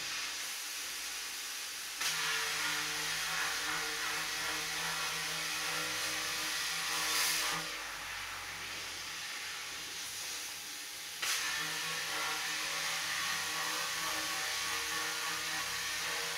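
Plasma cutter cutting through the steel tank of an electric water heater. The arc's hiss starts sharply about two seconds in, drops away for a few seconds in the middle, then starts sharply again, over a steady low hum.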